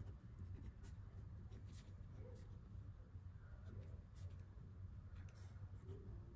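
Ballpoint pen writing on notebook paper: faint, irregular scratching strokes over a low steady hum.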